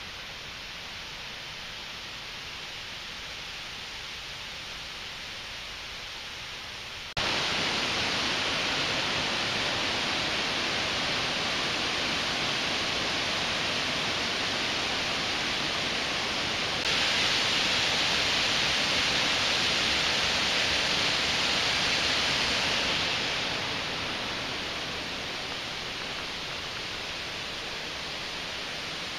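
Steady rushing water from the creek and waterfall in the gorge, an even hiss with no distinct splashes. It jumps suddenly louder about seven seconds in, gets brighter again around seventeen seconds, then eases off toward the end.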